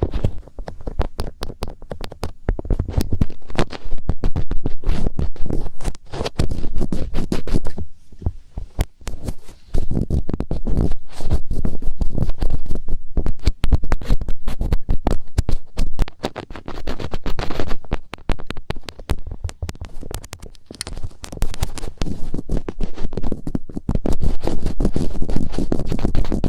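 Fingertips rubbing and scratching right against the ears of the microphone in finger ear-cleaning ASMR: a loud, dense run of crackling rubs and taps that eases off briefly twice.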